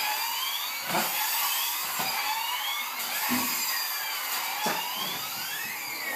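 Toy fire truck's electronic siren wailing in rising sweeps, repeated about once a second.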